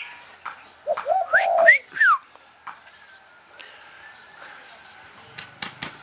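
Caged birds calling: a short run of low notes about a second in, then two or three quick whistled notes sliding up and down. A few sharp clicks near the end.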